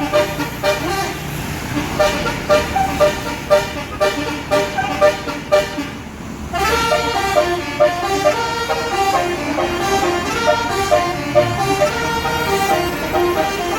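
Tour bus's 'basuri' telolet musical horn playing: quick repeated toots on one note for about the first six seconds, then a fast tune of notes stepping up and down.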